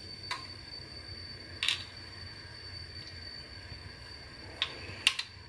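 Four light plastic clicks and taps as a plastic syringe is handled on the counter, the last two about half a second apart near the end, over a faint steady hum and a thin high steady tone.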